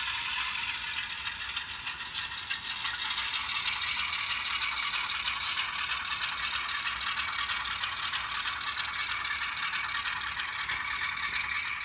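HO scale Alco RS11 model diesel locomotive running along the layout track, giving a steady rattling clatter with a whir from its motor and wheels.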